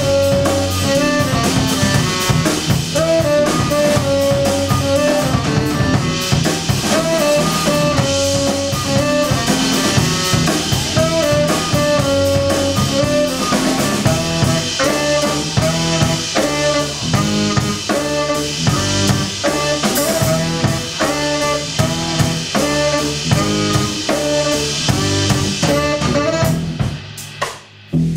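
Live jazz trio playing: a saxophone melody over electric bass and drum kit. About a second before the end the band drops out suddenly for a moment, then a drum hit comes back in.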